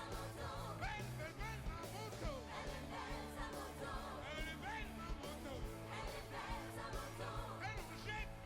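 Background rock music with a singing voice, a steady bass line and drums.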